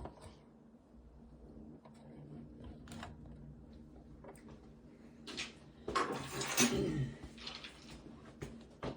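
Scattered clicks and knocks of hands handling tools and cable, with a louder rustling scrape about six to seven seconds in.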